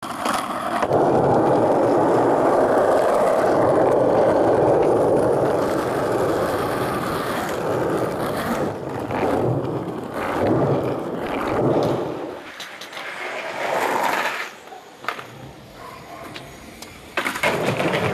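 Skateboard wheels rolling on rough pavement, loud for the first several seconds, then wavering and fading. A few sharp clacks come near the end.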